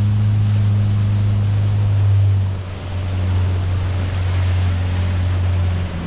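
Boat's outboard motor running at a steady cruising speed, a strong low hum over the rush of water past the hull. The engine note drops briefly about two and a half seconds in, then settles again.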